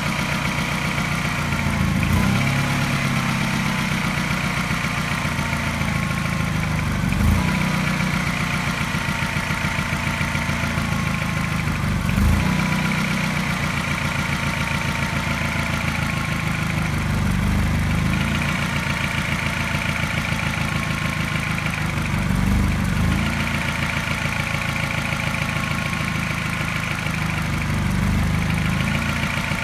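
Mini N12 1.6-litre four-cylinder petrol engine idling fast and steadily. A brief tap and stumble comes back about every five seconds, which the owner takes for a regular mild misfire that makes the idle seem to pulse.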